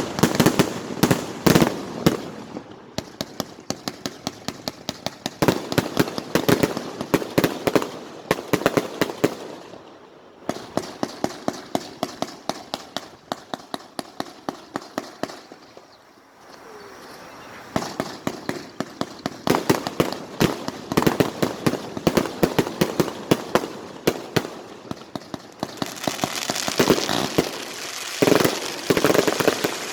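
Fireworks crackling: fast runs of sharp pops and cracks in several clusters with short quieter gaps, and a loud hiss near the end.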